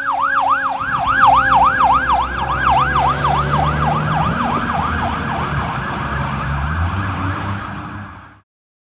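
Fire engine siren on a fast yelp, sweeping up and down about three times a second, with the truck's engine rumbling underneath as it drives past. About three seconds in the sweeps blur together and a rushing hiss joins.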